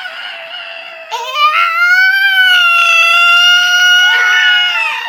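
A girl making a deliberately annoying high-pitched vocal whine: after a quieter tail in the first second, a long held note swoops up and holds steady for about four seconds, then breaks off near the end.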